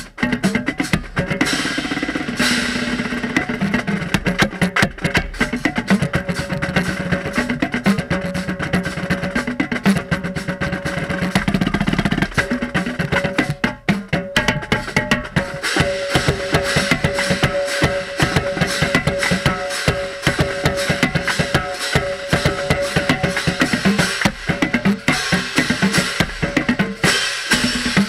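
A marching drumline playing a cadence, with a set of five tenor drums (quints) struck close up over the rest of the line, in fast, continuous strokes. The drumheads are wet from rain and not resonating as fully as usual.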